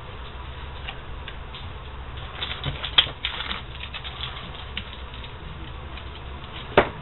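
Blue painter's tape being peeled off a freshly painted sledgehammer and crumpled, giving scattered small crackles and clicks, with a sharp click about three seconds in and a solid knock near the end, over a low steady hum.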